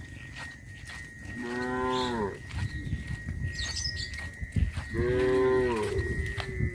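Cattle mooing: two long moos, the first about a second and a half in and a longer one about five seconds in, each dropping in pitch at its end.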